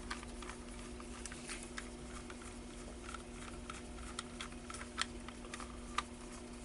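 Scattered light clicks and taps of small plastic parts as a cable tester's circuit board and case are fitted back together, two clicks near the end standing out, over a steady faint hum.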